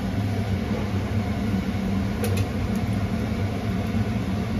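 Steady low mechanical hum, with one light metallic clink about two seconds in, fitting a steel ladle knocking a steel pan.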